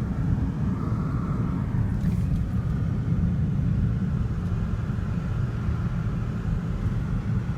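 Steady low rumble of a car driving along the road, with no change in pitch or level.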